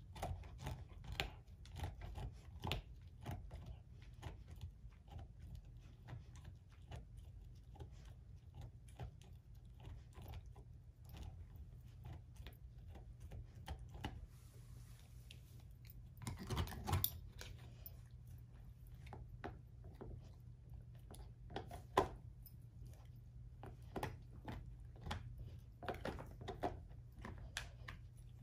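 German shorthaired pointer chewing an air-dried, hair-on whole pig foot: irregular crunches and gnawing, sparser in the middle, with a louder run of crunching about two-thirds of the way through and one sharp crack a few seconds later.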